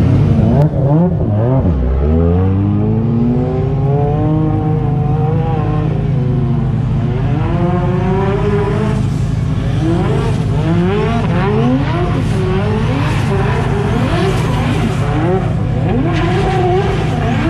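Drift car's engine revving hard in long rising and falling sweeps, then in short, rapid revs one after another from about halfway through, over the hiss of spinning tyres. A steady low engine hum runs underneath.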